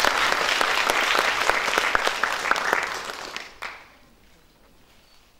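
Audience applauding, a dense patter of clapping that dies away about three and a half seconds in, with a single knock as it fades.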